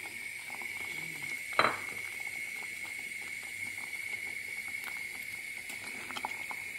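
A pot of curry sauce simmering, with small irregular bubbling pops as coconut milk is poured in and stirred, and one sharp knock about a second and a half in. A steady thin high whine sits underneath.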